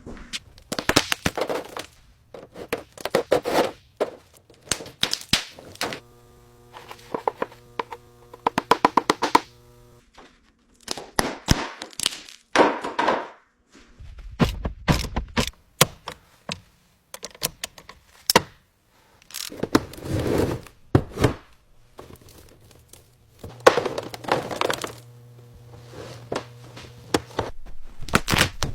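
A run of restoration workshop sounds: repeated knocks and thunks, with stretches of scraping, rustling and hissing. A steady hum sounds twice, about six seconds in and again past twenty seconds.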